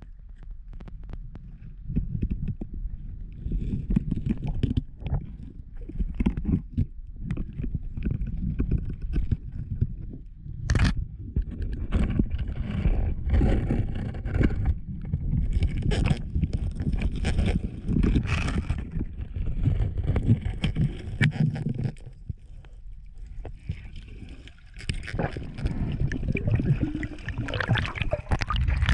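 Underwater camera sound of a reef dive: muffled water rumbling and gurgling in uneven surges, with scattered clicks and knocks and one sharp crack about eleven seconds in.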